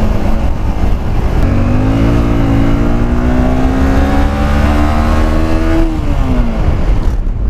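Motorcycle engine running under way, holding steady, then climbing slowly in pitch for a few seconds as it accelerates before easing off near the end, over a heavy low rumble.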